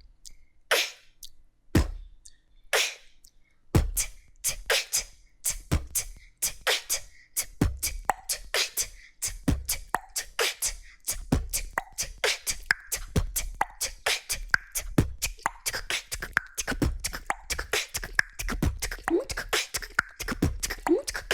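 Vocal beatbox pattern combining ten different mouth sounds: a few single hits spaced about a second apart, then from about four seconds in a fast, dense rhythm of clicks and hits over a low bass.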